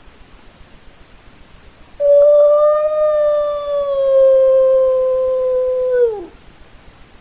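Border terrier howling: one long howl of about four seconds, held at a steady pitch that sinks slowly and drops away at the end.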